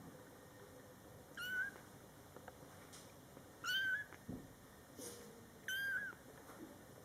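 Young kitten meowing three times, each call short, high-pitched and fairly level in pitch, about two seconds apart.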